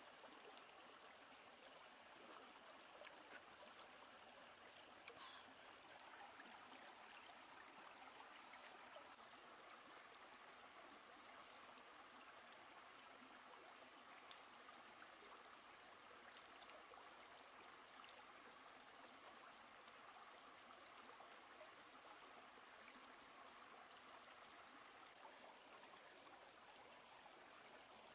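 Near silence: the faint, steady rush of a stream.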